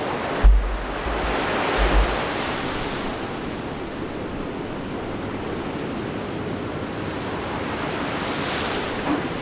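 Ocean surf breaking and washing in a continuous rush, with wind buffeting the microphone in short low rumbles about half a second in and again near two seconds.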